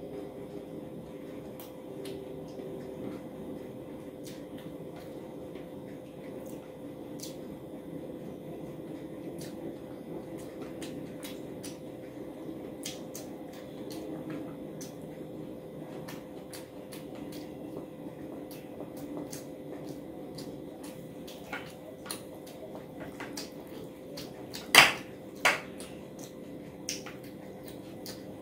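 Close-miked eating sounds: a person chewing rice and curry eaten by hand, with many small wet mouth clicks over a steady background hum. Two sharper, louder clicks come close together about 25 seconds in.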